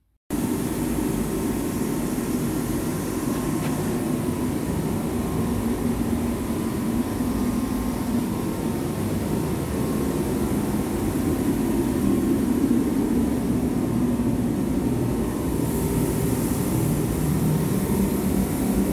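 Forced-air kerosene or diesel space heater running: a loud, steady fan-and-burner noise that starts suddenly and holds evenly, with a faint steady tone in it.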